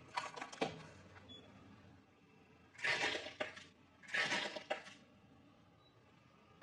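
Crunching and crackling of crispy food in three bursts: a few sharp crackles near the start, then two denser crunches about three and four seconds in.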